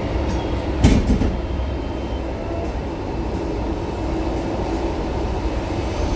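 R-type low-floor tram running, heard from on board: a steady rumble of wheels on rail with one sharp clunk about a second in.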